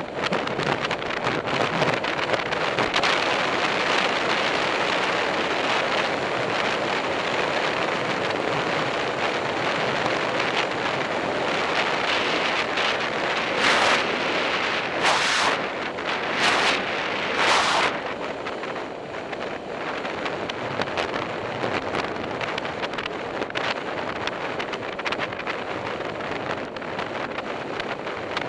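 Wind rushing over the microphone of a bicycle-mounted camera riding at speed in a road-race bunch: a steady rush of noise, with four brief louder gusts about halfway through.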